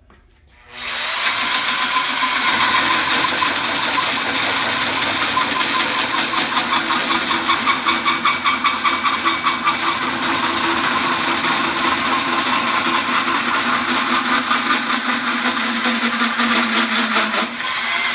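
Corded drill spinning a 4-inch bimetal hole saw as it cuts through a 4-inch mild steel tube in a tube notcher, finishing a lubricated 90-degree cope. The drill starts about a second in and runs steadily, the saw teeth making a fast rattling chatter on the steel, easing off slightly near the end.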